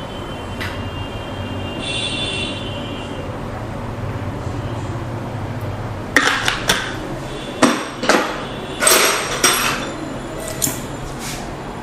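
A run of sharp taps and clicks during the massage, about seven of them, several in quick pairs, starting about halfway through.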